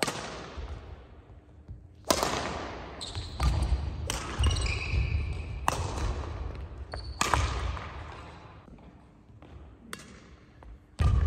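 Badminton rally: rackets striking the shuttlecock about every one to two seconds. Each hit is a sharp crack that echoes in the large hall. Footsteps thud on the wooden court floor, with a few short shoe squeaks.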